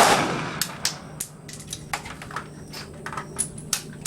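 A gunshot right at the start, its ringing dying away over about a second, then scattered small clicks and knocks, and a second gunshot at the very end.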